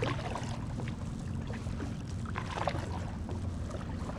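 Kayak paddling: a double-bladed paddle dipping into river water, with scattered splashes and drips from the blades over a steady low rumble.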